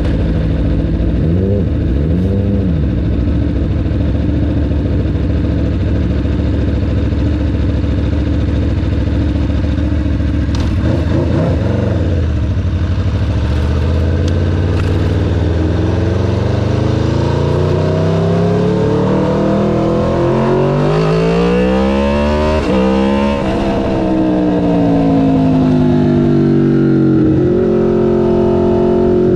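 Aprilia RSV4 Factory's V4 engine running at low revs, with two short throttle blips. From about halfway its revs climb steadily for some ten seconds, then fall away and settle near the end.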